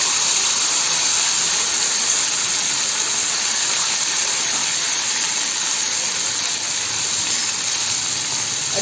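Garlic and green chilli paste sizzling steadily in hot mustard oil in an iron kadhai: the paste is frying in the tempering.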